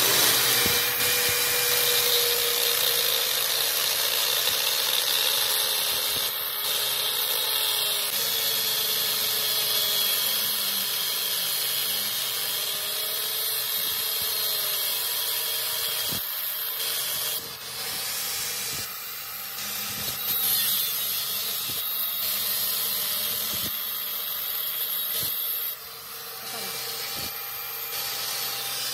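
Angle grinder with an abrasive disc grinding through a steel motorcycle sprocket clamped in a vise, a steady high-pitched grinding hiss over the motor's whine. The motor's pitch sags and recovers as the disc bites and eases off, with a few brief dips in loudness.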